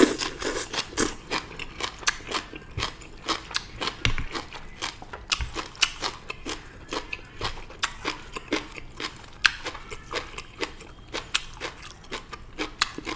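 Close-up chewing of stir-fried morning glory (water spinach): crisp crunching clicks, several a second, in an uneven rhythm.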